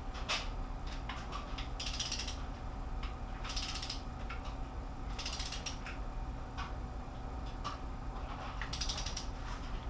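Socket ratchet clicking in four short runs, each about half a second long, as a small cylinder-head bolt is tightened on a 3.7L Jeep PowerTech V6, turned down to 10 ft-lb.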